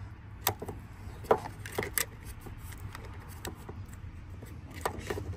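Flat-blade screwdriver tip working into the slot of a plastic wiring-harness connector, giving a few scattered light clicks and scrapes against the housing as it feels for the terminal position assurance tab, the sharpest about a second in.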